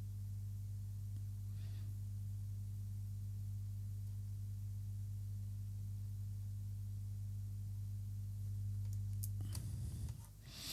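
Steady low electrical hum, with a faint brief rustle about two seconds in; near the end a few light clicks and the hum cuts out.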